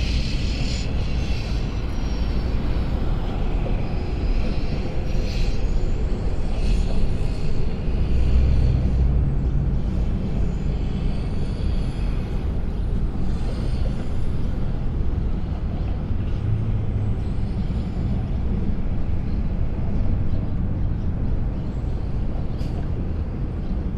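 Steady rumble of road traffic crossing the highway bridge overhead.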